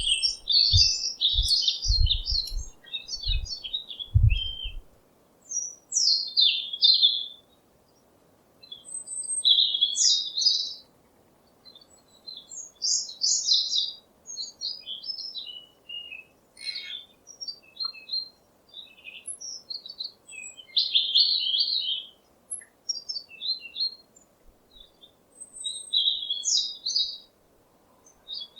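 Small birds chirping and twittering in phrases of one to two seconds with short pauses between them, over a faint steady hiss. Several low thumps in the first five seconds.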